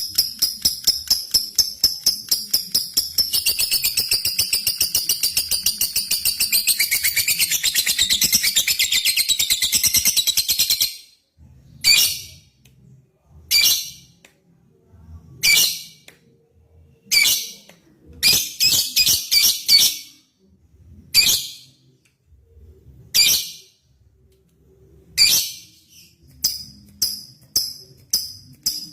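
Lovebird singing: rapid ticking notes ('ngetik') run into a long, continuous high chattering trill ('ngekek') that lasts about eight seconds and stops suddenly. Then come single sharp chirps a second or two apart, quickening into a fast run of chirps near the end. This is the long ngekek a lovebird uses to call out a rival.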